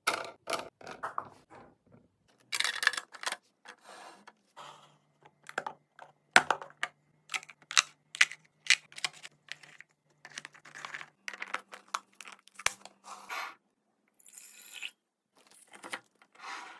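Snack packages and containers being handled during a restock: a quick series of sharp clicks and taps as items are set down and lids handled, with bursts of wrapper rustling and crinkling.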